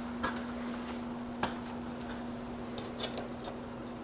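A few faint, sharp clicks and taps of metal stovepipe parts being handled and fitted overhead, over a steady low hum.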